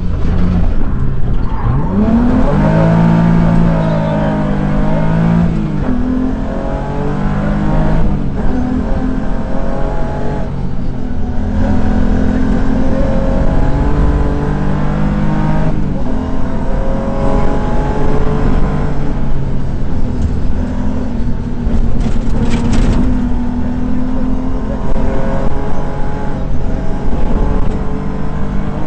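BMW 325i rally car's straight-six engine heard from inside the cabin, pulling hard with revs rising and falling and several brief dips where the driver changes gear.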